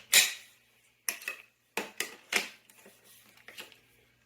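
Sharp clicks and knocks of hard plastic vacuum parts being handled: one loud click at the start, then several smaller clicks in quick pairs and threes.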